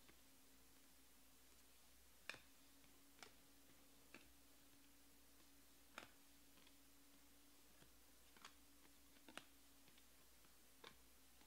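Baseball trading cards being moved one at a time through a stack held in the hand, giving about seven faint, sharp clicks at uneven intervals over a low steady hum.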